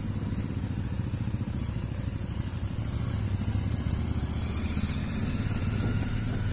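A vehicle engine idling steadily, a low even drone with no revving.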